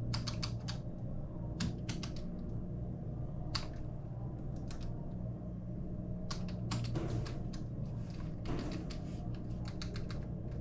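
Computer keyboard being typed on in irregular clusters of key clicks, as when typing a file name to save, over a low steady hum.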